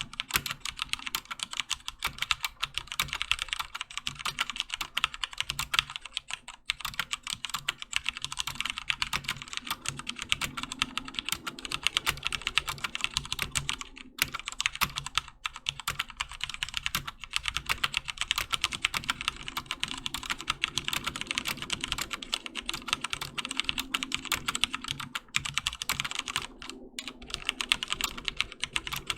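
Fast, continuous typing on a HyperX Alloy FPS Pro mechanical keyboard with Cherry MX Red linear switches, a dense stream of keystroke clacks with only brief pauses.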